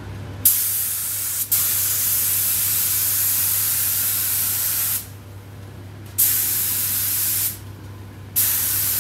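Compressed-air gravity-feed spray gun spraying a coat of primer, a steady hiss that starts and stops with the trigger. There is one long pass of about four and a half seconds, briefly broken early on, then a pause, a shorter pass, and another pass starting near the end.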